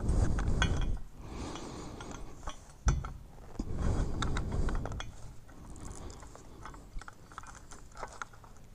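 Hands working wiring and plastic connectors into a motorcycle handlebar: irregular small clicks, rattles and handling noise, with one sharper knock about three seconds in.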